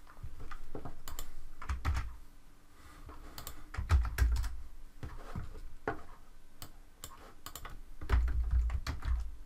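Typing on a computer keyboard: irregular key clicks, with clusters of dull low thumps about two, four and eight seconds in.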